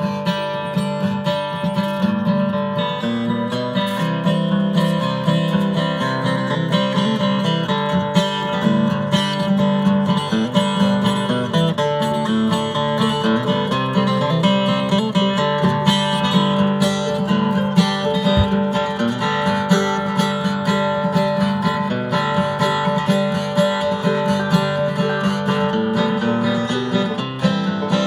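Background music led by strummed acoustic guitar, steady throughout.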